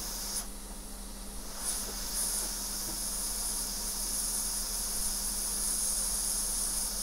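Hot-air rework station blowing a steady hiss of hot air over the phone's logic board. It cuts out about half a second in and comes back about two seconds in.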